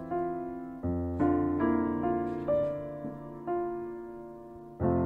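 Background piano music: slow, gentle notes that ring and fade, with a new low bass note and chord struck about a second in and again near the end.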